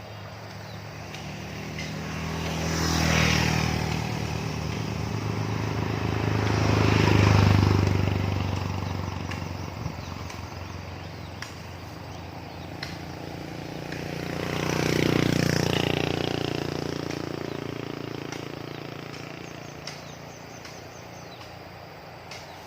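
Motor vehicles passing one after another on a road, three times: each pass-by rises to a peak as it goes by and then fades, over a steady low engine hum.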